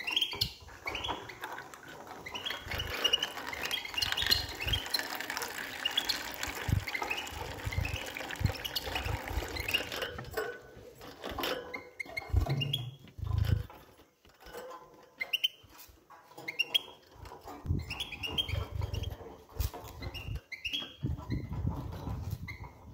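Young European goldfinches giving short, repeated chirps, over scattered clicks and low thumps from birds moving about the cage.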